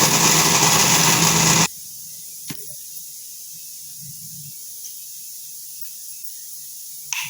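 Electric mixer grinder running at full speed, grinding biscuits and sugar into fine powder, with a steady motor hum under the grinding noise; it cuts off abruptly after about two seconds. A single click follows about a second later.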